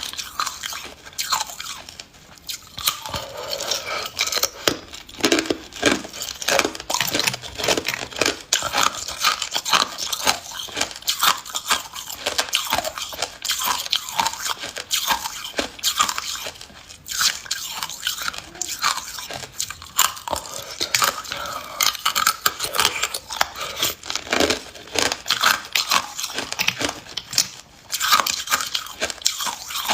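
Person biting and chewing hard ice, close up: a steady run of sharp, crackling crunches as the ice is cracked and ground between the teeth.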